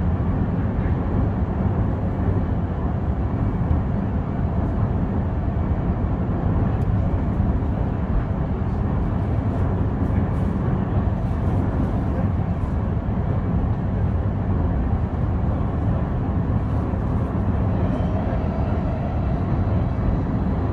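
Running noise heard inside a JR West 223 series 2500-subseries electric multiple unit motor car under way: a steady, loud, low rumble of wheels on rail and running gear, without clear change through the stretch.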